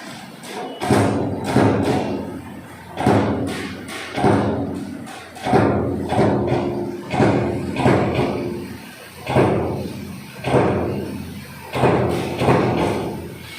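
CNC turret punch press striking sheet metal, about a dozen heavy punch hits at uneven intervals, each followed by a short metallic ring from the sheet and machine frame.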